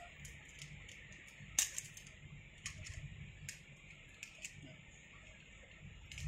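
Scattered sharp metallic clicks and clinks of rope-access hardware (carabiners and a descender) being handled on a loaded rope, the loudest about a second and a half in, over a steady hiss.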